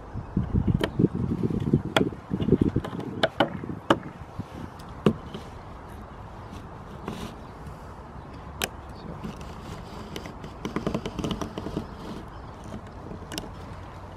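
Paint scraper working old, hardened silicone sealant off a motorhome's aluminium roof around a roof vent opening: rasping scraping in two spells, over the first few seconds and again about two-thirds of the way through, with sharp clicks of the blade against the metal between them.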